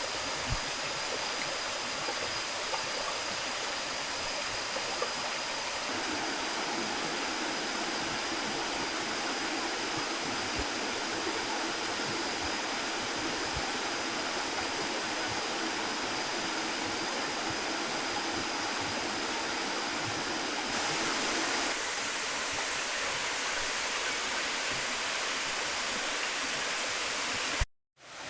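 Water rushing steadily down a waterfall cascade, broken by a brief silence near the end.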